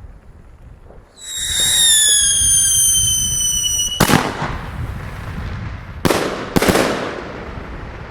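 Funke 3-Schlag Schocker firework: a loud whistle, sliding slowly down in pitch for about three seconds, then three sharp bangs, the last two about half a second apart.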